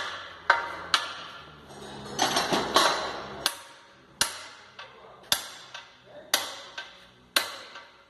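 Hammer blows on metal, driving a part into an LP 321 truck gearbox until it seats: about a dozen sharp, ringing strikes, roughly one a second, with a stretch of denser metal clatter about two seconds in.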